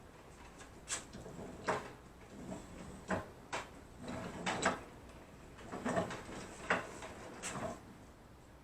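A run of short knocks and clunks, about eight of them at irregular spacing, like something solid being handled and set down.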